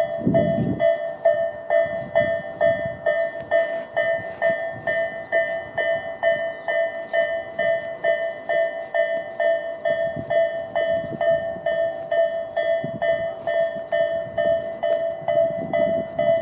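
Japanese railway level-crossing warning bells of the electronic Tobu 'sound A' type, ringing in a steady, even run of dings. A low rumbling noise swells briefly near the start and again near the end.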